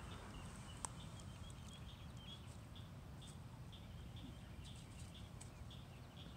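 Ducklings peeping: faint, short high peeps repeating a few times a second, over a low steady rumble.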